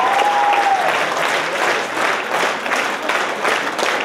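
Large theatre audience applauding, dense and steady. A held pitched tone carries into the start and fades out within the first second.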